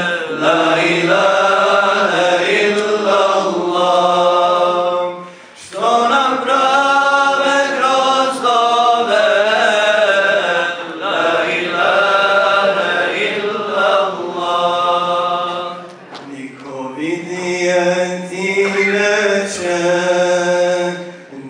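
A man's voice chanting an unaccompanied Islamic religious song into a microphone, in long, wavering, held phrases with short breaks about five and sixteen seconds in.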